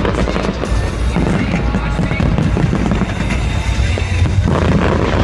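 Fireworks bursting and crackling in rapid succession over loud music.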